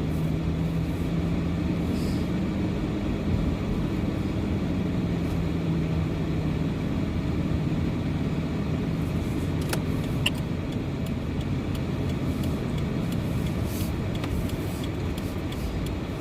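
Steady car driving noise: engine and road rumble, with a low hum that fades out about halfway through.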